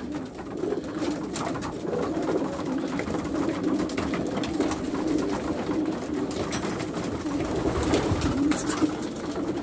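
A flock of homing pigeons cooing continuously in a loft, with a few faint clicks among them.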